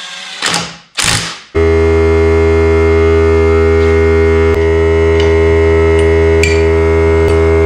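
Background music, a steady droning chord over a deep hum, comes in abruptly about a second and a half in and holds loud, with a few faint ticks. Before it come two short rattling mechanical noises.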